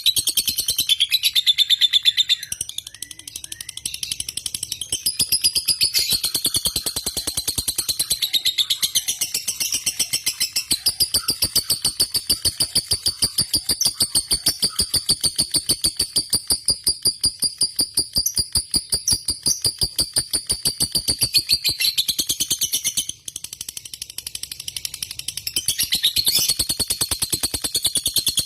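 Lovebird singing a long, fast trilling chatter (the 'ngekek' song bred for in fighter lovebirds), a rapid even train of high chirps held unbroken for over ten seconds, breaking off briefly past the middle before starting again.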